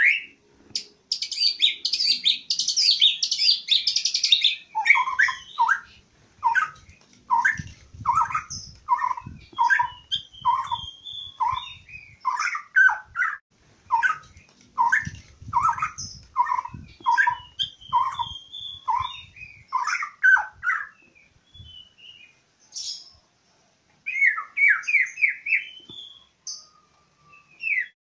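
Caged white-rumped shama (murai batu) singing. It opens with a burst of fast, high twittering, then gives a long run of repeated clear whistled notes at about one to two a second, broken by short higher phrases and a quick run near the end. Keepers call this song style 'setengah kopling' with 'isian', meaning filler phrases the bird has learned.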